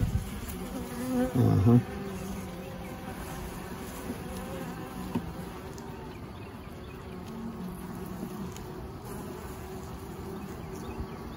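Honey bees buzzing steadily on an open brood frame: a constant hum of the colony. A short low sound comes about a second in.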